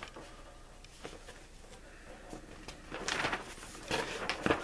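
Paper instruction booklet being unfolded and leafed through by hand, rustling in two short spells, about three seconds in and again about four seconds in.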